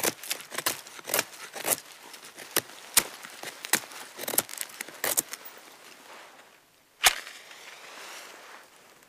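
Dry, resinous pine-root splinters (fatwood) being snapped and split by hand: a quick series of sharp cracks for about five seconds. About seven seconds in, a match is struck with one sharp scrape and flares with a short hiss.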